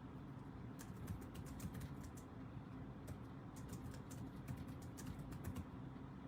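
Typing on a computer keyboard: a quick, irregular run of key clicks starting about a second in and stopping near the end, over a faint low hum.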